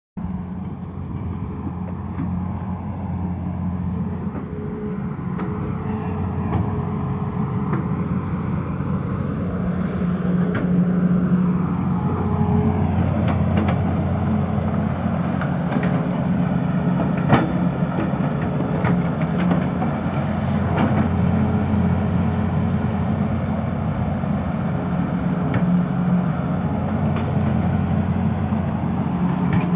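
Tata Hitachi excavator's diesel engine running steadily, swelling and easing a little in level as the machine works, with a single sharp knock about seventeen seconds in.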